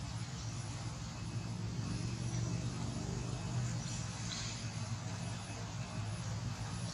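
A steady low engine drone from a distant motor.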